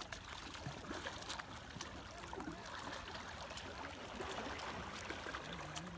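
Double-bladed kayak paddles dipping into calm river water, with light splashing and trickling of water throughout.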